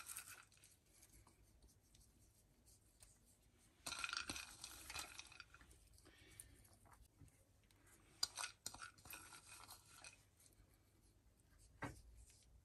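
Mostly near silence, broken by two short spells of faint rustling and scratching, about four seconds in and again about eight seconds in, and a single click near the end: baking paper crinkling and fingers pressing chopped walnuts and pistachios onto a tray of set halwa.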